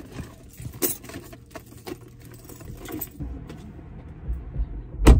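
Rustling and light clicks of someone moving in and out of a car through the open driver's door, then a single heavy thump near the end as the car door shuts.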